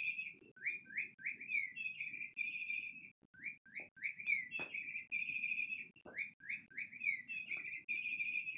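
SmartyKat Chickadee Chirp electronic cat toy playing recorded bird chirps through its small speaker, set off by the cat's handling. The chirps come in fast runs of short rising notes, with brief pauses about three and six seconds in.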